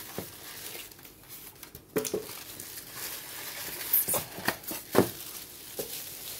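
Clear plastic bag crinkling and rustling as it is pulled off a water pump, with a few sharp clicks and knocks from handling the pump in its foam packing, the loudest about two, four and five seconds in.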